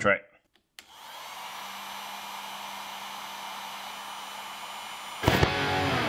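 Opened-up electric heat gun switched on: the airflow rises and settles into a steady rushing hiss with a faint low hum. About five seconds in comes a sudden loud burst as brake cleaner sprayed into it ignites.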